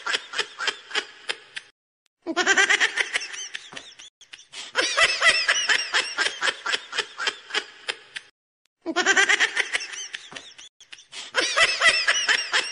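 High-pitched laughter sound effect added over the clip: quick runs of 'ha-ha' pulses in repeated bouts, broken by short pauses.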